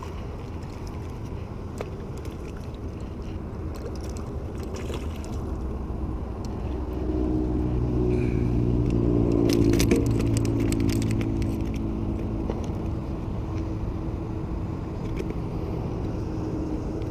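A motor drones steadily, growing louder from about six seconds in, peaking a few seconds later and then holding on a little lower. A few light clicks sound over it.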